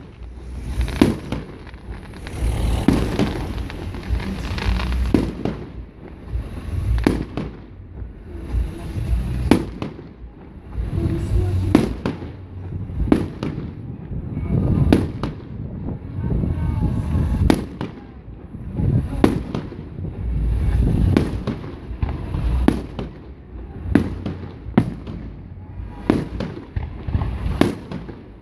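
Aerial fireworks shells bursting in a steady barrage, a sharp bang about once a second, each followed by a deep rumbling echo.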